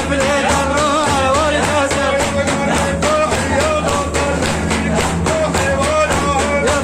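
Sufi praise-song (madih) music: a wavering melody carried over a steady, even drum beat.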